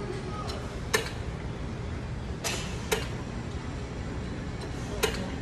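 Weight-stack plates of a lying hamstring curl machine clinking as the stack is lifted and set down during reps: sharp single clicks about a second in, a close pair around two and a half to three seconds, and another near the end, over a steady low gym hum.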